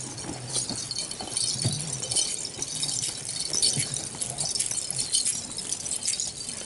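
Continuous dry rattling and jangling made of many small, fast clicks, with faint voices murmuring underneath.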